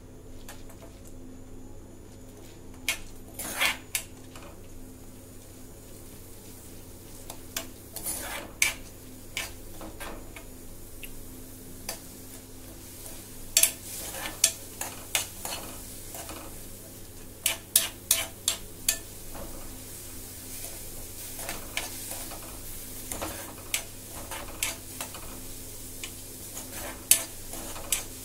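Metal spoon stirring and scraping against a steel kadai, roasting lentils on a gas stove, with irregular clinks and scrapes, some sharper, over a steady low hum.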